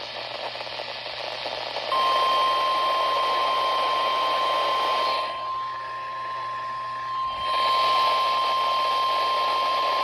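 NOAA Weather Radio's 1050 Hz warning alarm tone, a single steady beep-like tone over radio reception hiss. It comes in about two seconds in and holds without a break, signalling that a warning message follows.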